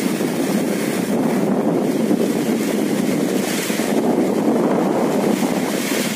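Rain falling steadily on an umbrella overhead, a dense, even noise without pauses.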